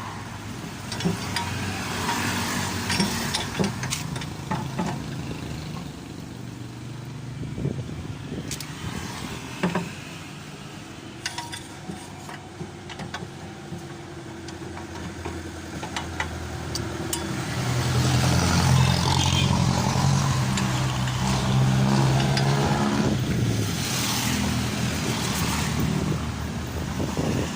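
Scattered metallic clicks and knocks, then a motor vehicle engine that grows loud about two-thirds of the way in, runs steadily for several seconds and fades near the end.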